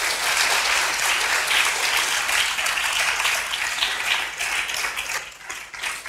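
Theatre audience applauding, the clapping thinning and fading over the last second or so.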